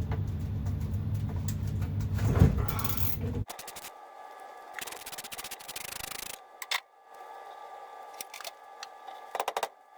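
A steady low hum with a clank about two and a half seconds in. After a cut come quieter runs of rapid clicking, typical of a socket wrench ratcheting on the steering wheel nut, with light metal scraping.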